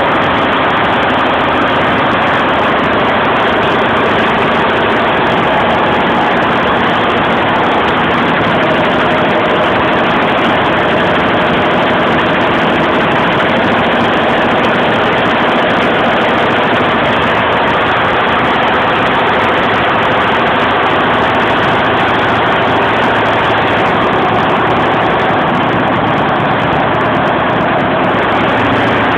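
Golden Lion computerised embroidery machine stitching at 850 rpm, a loud, steady, continuous mechanical clatter.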